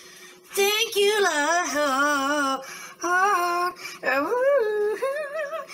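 A high-pitched voice singing a few drawn-out notes with a wavering vibrato, in four phrases, the first and longest about half a second in.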